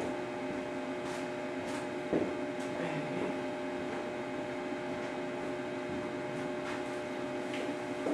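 Steady electrical mains hum made of a few even tones, with a single faint knock about two seconds in.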